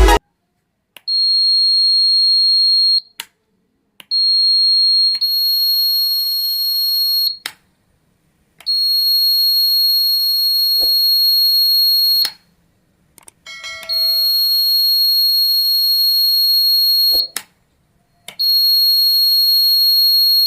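Buzzer of a homemade wireless door alarm sounding a steady high-pitched tone in five long bursts of two to four seconds each, separated by short silent gaps, with a click as most bursts start and stop.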